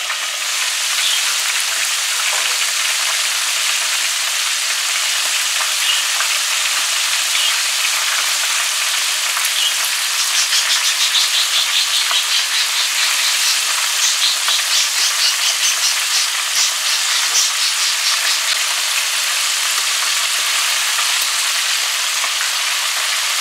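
Flour-coated chicken wings deep-frying in hot oil, a loud, steady sizzle. From about ten seconds in, the sizzle pulses rhythmically for several seconds while the wings are turned over with metal tongs.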